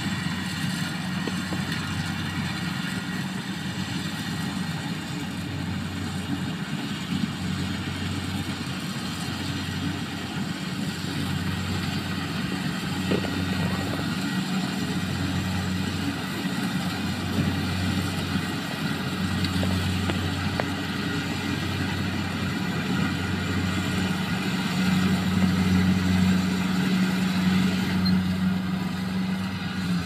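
Rice combine harvester running steadily while cutting and threshing lodged rice: a continuous engine and machinery hum that swells and fades slightly every couple of seconds. It grows louder near the end as the harvester comes closer.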